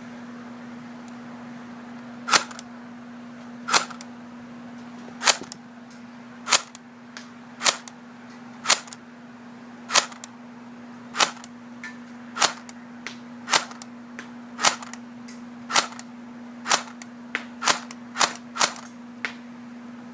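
Airsoft rifle firing single shots at a can target, sharp pops about one a second, coming closer together near the end, about eighteen in all.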